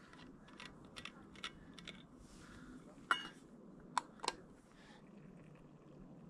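Light clicks and knocks of a drinking cup and small camp gear being handled, with a sharp, briefly ringing clink about three seconds in and two more clinks about a second later.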